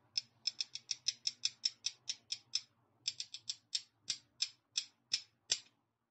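Rapid series of short, sharp mechanical clicks, about six a second, breaking off briefly and then resuming with the clicks spreading further apart toward the end.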